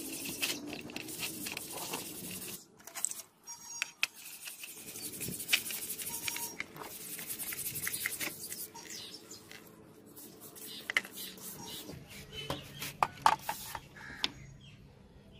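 Wooden stick scrubbing and scraping along a rusty steel knife blade in a tray of liquid: irregular gritty rubbing broken by sharp scratches and clicks, with the wet blade lifted and set down near the end.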